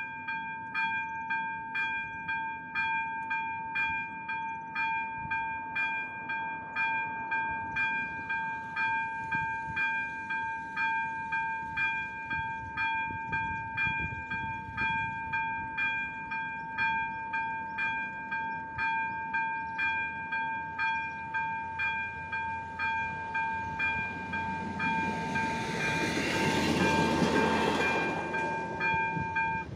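Electronic ZV-02 level-crossing bell ringing steadily, a struck tone repeating about three times every two seconds. Near the end a regional diesel railcar passes over the crossing: its rumble swells to the loudest point and fades, and the bell stops as the train clears.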